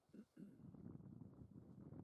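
Faint, uneven low rumble of wind buffeting the microphone.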